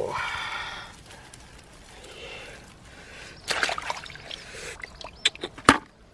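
Hands working in a muddy, water-filled hole among dry vine stems: a short pitched sound at the very start, then sloshing and rustling of stems, with a burst of rustling about three and a half seconds in and a few sharp snaps near the end.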